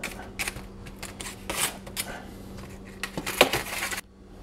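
Butter knife scraping and tapping on baked potato halves in crinkling aluminium foil: a run of short crackles and clicks, busiest and loudest about three seconds in, cutting off suddenly near the end.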